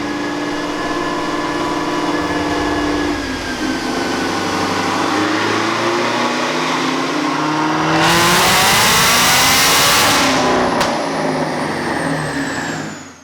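Supercharged V8 engine running steadily, then climbing in speed with a loud rush at full throttle about eight to ten seconds in, a faint high whine above it. The revs then drop back and the sound fades out near the end.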